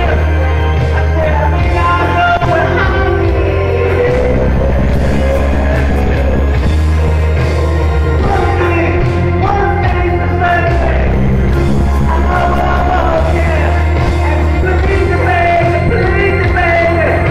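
A singer's voice over a rock ballad backing track, with heavy bass notes held steady underneath while the vocal line glides and bends.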